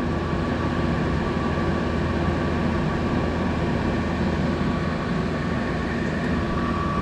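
Window air conditioner running: a steady hum of compressor and fan with a constant tone through it, blowing cold air, so the unit works and cools.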